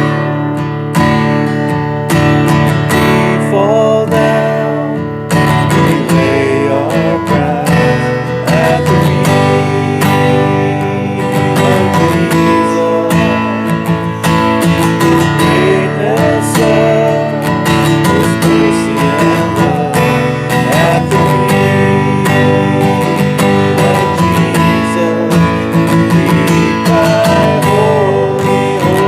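Acoustic guitar music, strummed chords played continuously.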